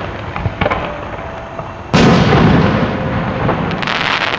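Large 10- to 12-inch aerial firework shells. An earlier boom is echoing away at the start. A second, very loud boom comes about two seconds in and rumbles and echoes on across a valley for seconds. Near the end there is a short stretch of crackling hiss.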